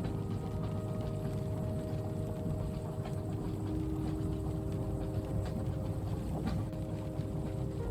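Train carriage ambience: the steady low rumble of a train running, with faint scattered clicks and a few held steady tones above the rumble.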